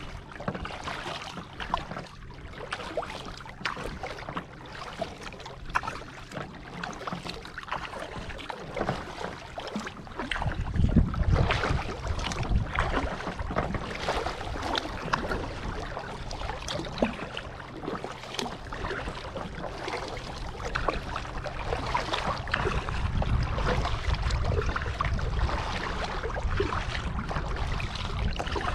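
Kayak paddle strokes splashing and dripping water alongside a plastic kayak hull. About ten seconds in, a low rumble of wind buffeting the microphone comes in and stays.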